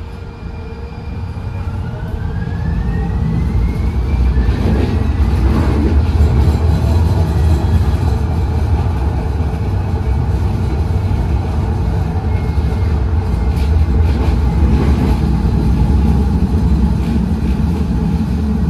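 Cabin noise of a 2023 Siemens LRV4 light rail car pulling away and running on rails. The low rumble of wheels and running gear grows louder over the first four seconds, while a thin electric whine rises in pitch as the car gathers speed. After that the rumble holds steady at cruising speed.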